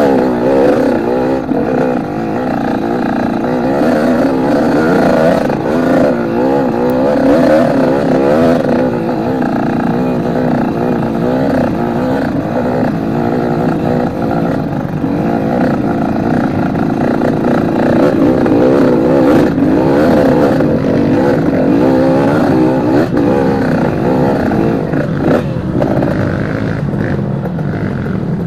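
Trail motorcycle (dirt bike) engine being ridden, its pitch wavering up and down continually as the throttle is opened and closed.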